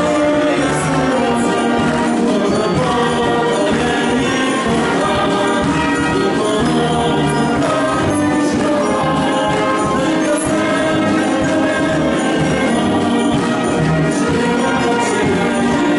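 Military concert band of woodwinds and brass playing a song, with a man and a woman singing it together into microphones.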